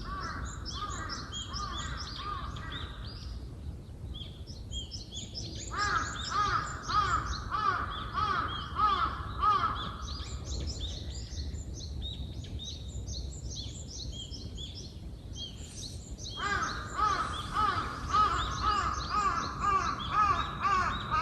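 Early-morning birdsong. One bird gives loud repeated calls in three runs of several seconds, at about two or three notes a second, over steady high-pitched chirping from many small birds.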